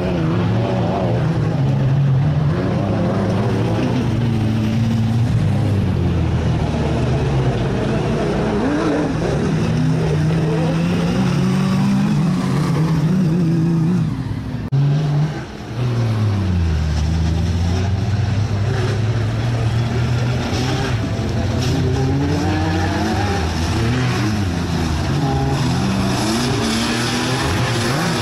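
Off-road race car engines revving up and down as they drive the dirt circuit, the pitch rising and falling with throttle and gear changes. The level drops briefly about halfway through.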